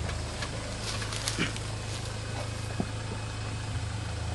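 Hyundai Terracan SUV's engine running low and steady as it crawls down a rocky slope, with a few short sharp knocks and clicks from the tyres and body meeting rocks and sticks.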